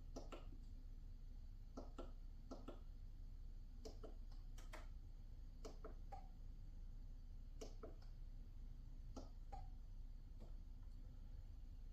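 Scattered faint clicks and light taps, many in quick pairs, from hands handling the portable water heater and its plastic fittings, over a low steady room hum.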